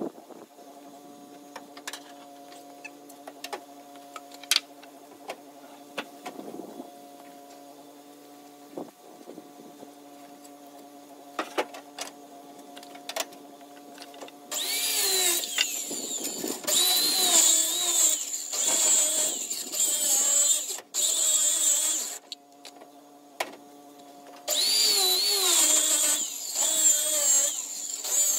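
Handheld circular saw cutting through a wooden board in two long runs, the first about halfway in and the second near the end. The motor's whine rises and falls as the blade takes the load. Before the cuts there are light knocks and clatter of boards being handled.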